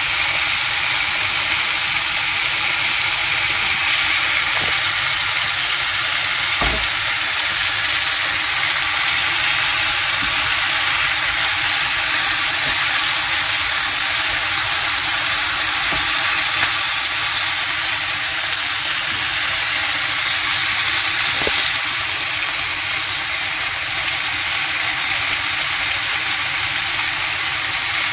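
Cherry tomatoes, zucchini and yellow peppers frying in oil in a nonstick frying pan: a steady, even sizzle. A wooden spatula stirs them now and then, giving a few faint knocks.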